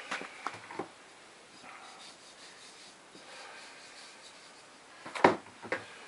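Slide sandals shuffling and stepping on a carpeted floor, with light scuffs and clicks. There is one sharper knock about five seconds in, the loudest sound, followed by a few more clicks.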